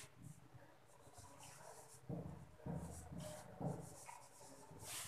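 Marker pen writing on a whiteboard: a few faint, short strokes of the felt tip rubbing across the board, beginning about two seconds in.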